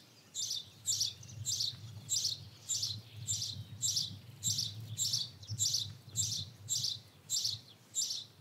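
A high chirping call repeated very evenly, about three chirps every two seconds, over a faint low rumble of outdoor ambience.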